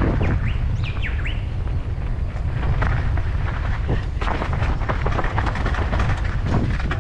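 Mountain bike rolling fast down a rocky dirt trail: steady wind rumble on the microphone, with tyres crunching over gravel and the bike clattering and rattling over stones. A few short bird chirps sound about a second in.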